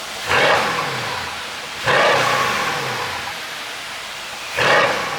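Mercedes-AMG S63's twin-turbo V8 blipped three times from idle, each rev rising sharply and then falling back, through an exhaust with an ECU pop-and-crackle tune.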